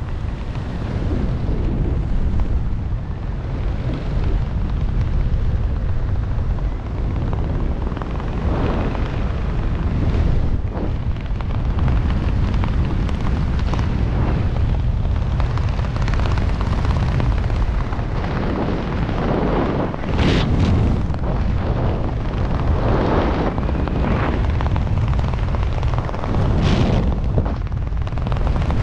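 Wind buffeting the helmet camera's microphone during a descent under an open parachute canopy: a steady low rumble with several brief louder rushes, two sharp ones in the last third.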